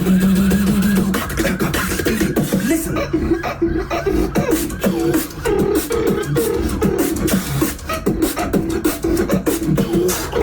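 Tag-team beatboxing: two beatboxers layering a sung bass line with fast, dense vocal drum and hi-hat sounds in a steady rhythm. The high sounds drop out for about a second around three seconds in.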